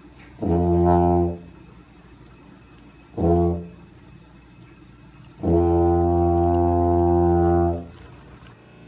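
Tuba imitating a diesel locomotive horn: three steady low blasts, long, short, then a longer one.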